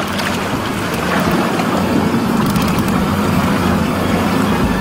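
A boat's engine running steadily, a constant low hum.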